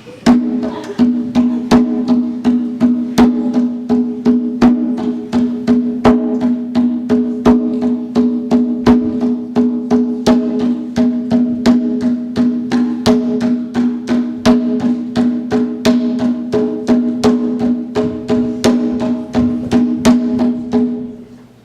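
Live percussion playing a steady beat of sharp wood-block-like and drum strikes, about two to three a second, over a sustained low droning tone. It starts abruptly and cuts off just before the end.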